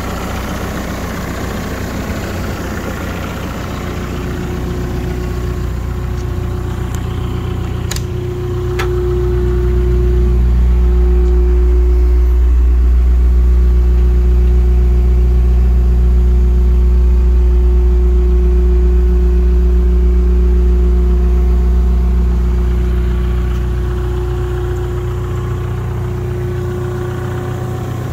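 Manitou MSI 30 forklift's engine idling steadily at an unchanging pitch. It grows louder and fuller in the low end from about ten seconds in until about twenty-three seconds. Two sharp clicks come about eight seconds in.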